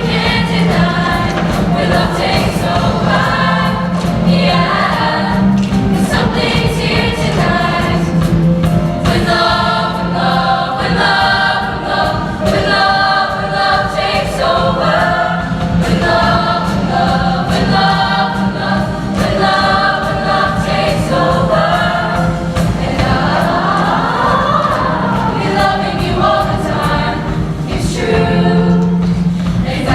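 Show choir singing in harmony over instrumental accompaniment with a steady beat.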